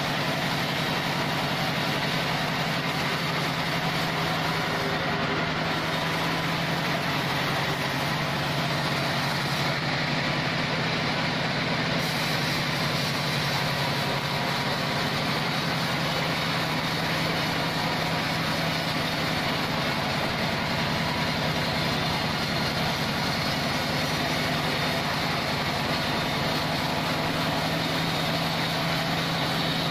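Band sawmill machinery running with a steady, unbroken drone.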